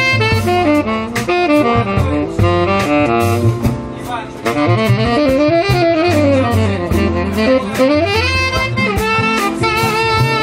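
Tenor saxophone soloing in a jazz tune over drums and double bass, with quick runs that sweep down and back up about halfway through.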